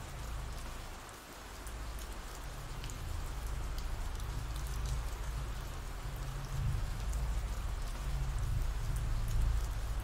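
Steady rain falling, a continuous ambient rain sound-effects bed, with a low rumble underneath and scattered faint drop ticks; it dips briefly about a second in, then holds steady.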